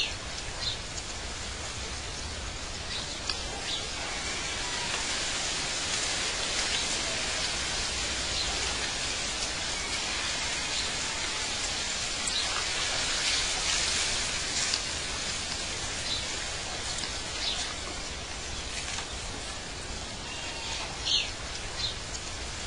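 Outdoor nature ambience: scattered short bird chirps over a steady high hiss.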